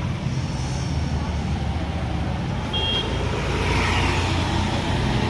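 Steady low mechanical rumble, with a short high beep about three seconds in.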